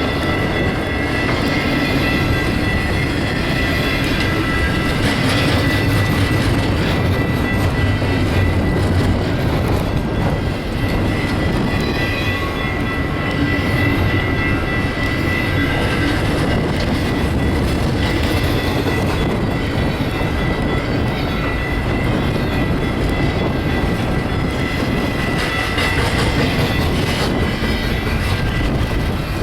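Double-stack intermodal freight train rolling past at speed: a steady heavy rumble of wheels on rail with rapid clicking over the joints and a thin, steady high squeal from the wheels.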